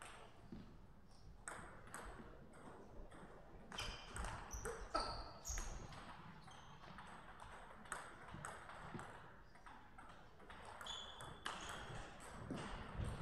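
Table tennis balls clicking and bouncing: scattered sharp ticks at irregular intervals, each with a short high ring, with a few close runs of bounces.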